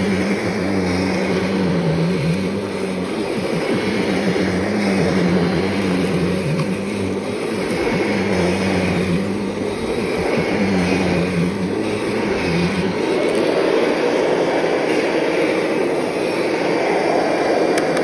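Kirby G5 upright vacuum cleaner running on a shag rug, a steady motor hum whose tone dips briefly every two to three seconds.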